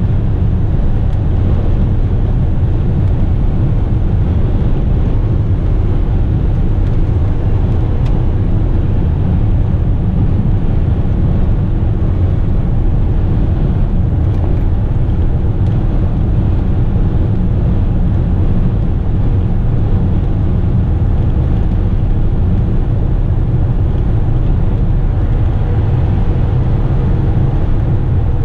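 Steady low drone of a loaded Western Star tipper truck's diesel engine and tyres cruising at highway speed, heard from inside the cab, with no change in pitch.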